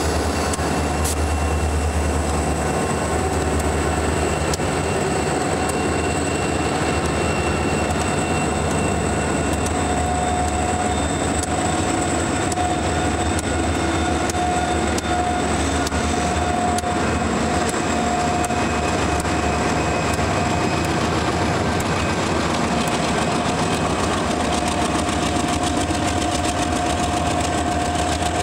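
Several Norfolk Southern diesel-electric locomotives, ex-Conrail EMD SD40-2s and a GE C40-9W, passing slowly at close range, their engines running steadily with a steady whine on top.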